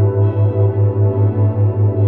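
Ambient relaxation music: sustained tones over a deep bass note that pulses about five times a second.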